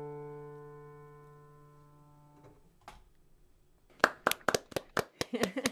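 Final chord on a digital piano, held and fading away over about two and a half seconds. After a single click, a quick run of sharp hand claps, about six a second, comes in near the end.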